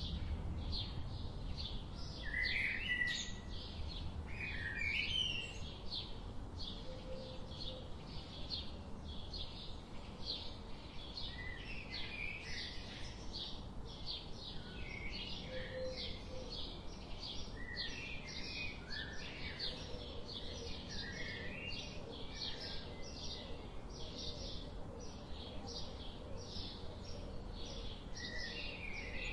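Birds chirping: many short, high calls repeated several times a second over a low steady background hiss.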